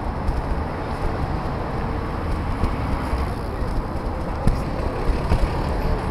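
City street traffic: cars and trucks passing on the road alongside the sidewalk, a steady rumble of engines and tyres.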